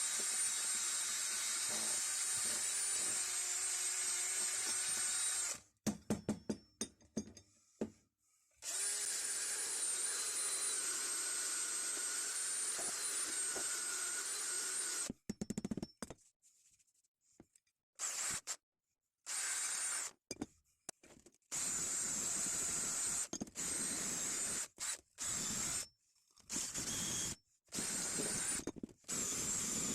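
Small power tool running with a steady high whine, cleaning out rust and muck from the spots on an old pipe wrench that a wire wheel could not reach. It runs for several seconds twice, then in short bursts that stop and start abruptly.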